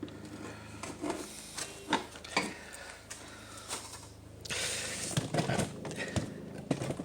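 Scattered clicks, knocks and light metallic rattles from hand-handling a car's hood latch and its metal parts while fitting it back in place.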